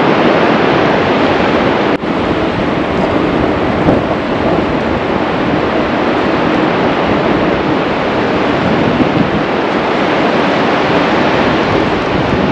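Loud, steady rushing of fast river water at the confluence of the Spiti and Sutlej rivers, mixed with wind on the microphone.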